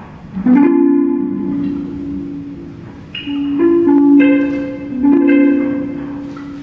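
Electric guitar notes and chords plucked and left to ring, struck a few times and each slowly dying away.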